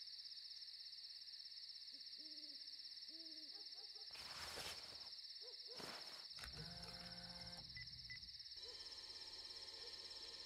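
Faint night ambience: a steady high chirring like crickets, with a few short, low hooting calls about two seconds in and a couple of brief noisy swishes later.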